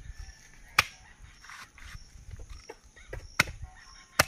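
A large knife chopping a plucked chicken on a wooden log block: three sharp chops, about a second in, at three and a half seconds, and near the end.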